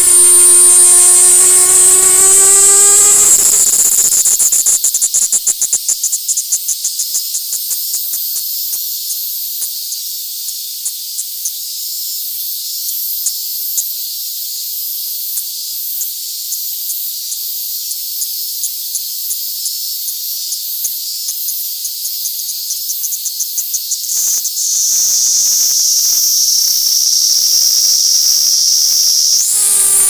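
Kaempfer cicada (Platypleura kaempferi) singing while held on the hand: a loud, high, continuous buzzing song that changes pattern. A steady buzz with a lower tone beneath it opens the song, then comes a long stretch of fast-pulsing hiss, and near the end a steady high buzz, with the lower tone returning at the very end.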